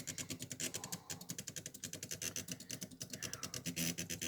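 Small homemade two-motor CNC drawing machine running a G-code job: its motors click rapidly and evenly, about ten times a second, over a steady low hum, with a brief whine that changes pitch a few times as the head moves.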